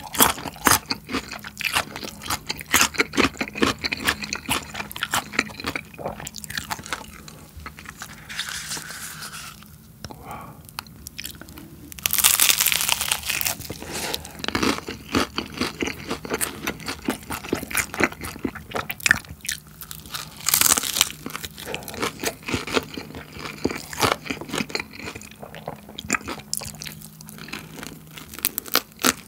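Close-miked chewing and crunching of food: BHC Bburinkle fried chicken with its crisp, cheese-seasoned coating, and cubes of pickled radish. The crunching comes in quick, sharp bites throughout, loudest and densest about twelve seconds in.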